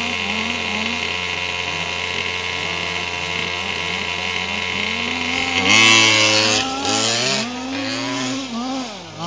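Losi 5ive-B buggy's ZEN 290 two-stroke gas engine on its stock exhaust, revving up and down again and again as the buggy is driven around the track. It gets louder about six seconds in, and the revs drop sharply and climb again near the end.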